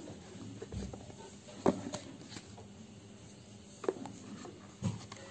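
A cardboard smartphone box being handled as its lid is lifted off: faint scuffing with a few sharp taps, about two, four and five seconds in.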